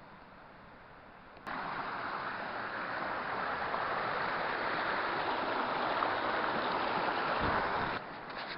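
Steady rush of running water from a stream, cutting in suddenly about a second and a half in and stopping abruptly near the end.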